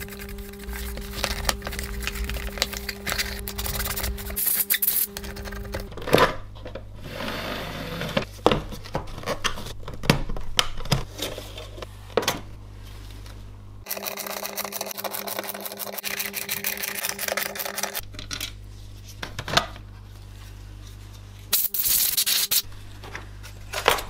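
Paintbrush bristles sweeping dust off the metal casing of a Sony DVD writer in several rough strokes, with scattered clicks and knocks as the drive and its open plastic tray are handled.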